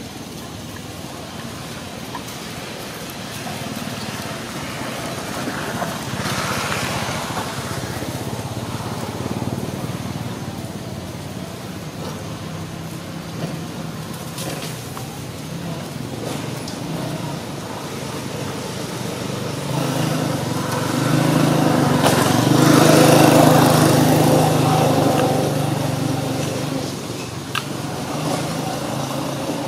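An engine running with a steady hum, growing louder about two-thirds of the way through and easing off again near the end, as a motor passes or comes close.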